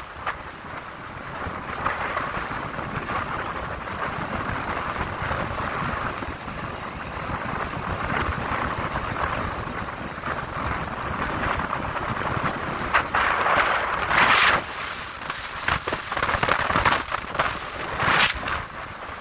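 Wind rushing over the microphone of a phone riding on a moving vehicle, over steady road and running noise. Louder gusts of wind buffeting come about two-thirds of the way through and again near the end.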